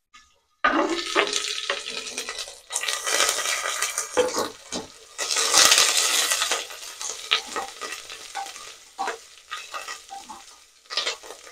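Chopped onion and curry leaves sizzling and crackling in hot oil with spluttering mustard seeds in a pressure cooker, being stirred. The sizzle starts suddenly about a second in, is loudest around the middle, and thins to scattered crackles near the end.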